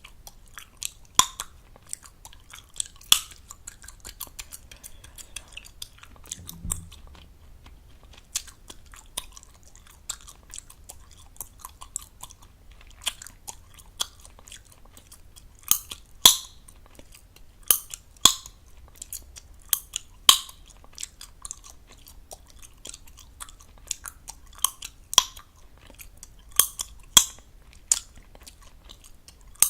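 Close-up gum chewing: wet smacks and small clicks, broken by sharp loud gum pops every second or two.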